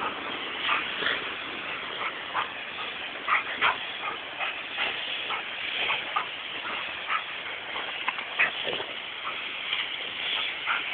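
Labrador retriever giving many short, irregular yips and barks, over the steady hiss of a garden hose spraying water.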